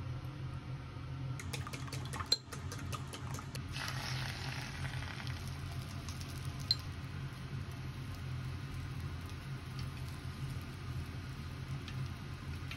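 A run of quick clicks, then beaten egg sizzling in a hot, oiled tamagoyaki pan from about four seconds in, over a steady low hum.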